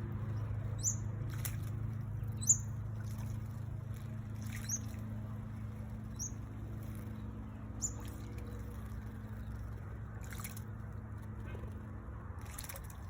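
A small bird giving a short, high call five times, about every second and a half, over a steady low hum.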